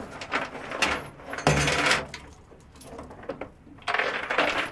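Anchor chain and rope clanking and rattling against the aluminium bow locker of a boat as they are pulled out by hand, in a few irregular bursts, the loudest about a second and a half in and another near the end.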